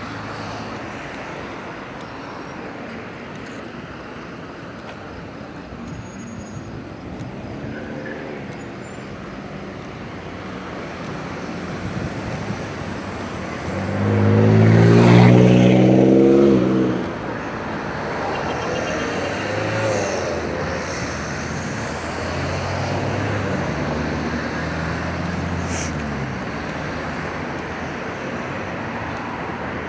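Road traffic on a city street: a car passes close about halfway through, its engine briefly loud and dropping in pitch as it goes by, with further vehicles running past more faintly afterwards.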